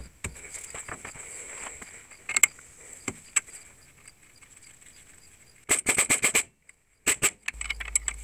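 Hand tools on a car's sway bar link: scattered light metallic clicks and knocks as the link is fitted. About six seconds in comes a quick run of ratchet clicks, about ten a second, as its nut is turned.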